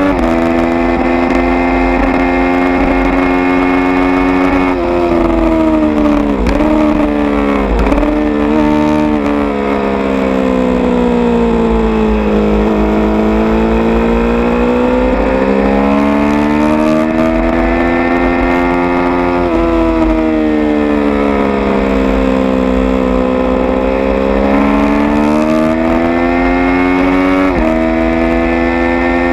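Triumph Street Triple R 675's three-cylinder engine through an aftermarket SP Engineering exhaust with wadding in its baffle, ridden hard on track. Revs hold high, dip sharply a few times about six to eight seconds in as the rider shifts down, sag slowly through a long corner and climb again, then rise and fall with quick steps at gear changes. A low rumble of wind on the microphone runs under it.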